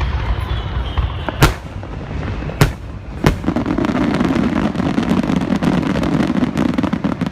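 Aerial fireworks bursting during a display's finale: three sharp booms in the first few seconds, then a dense, continuous rumble of many bursts.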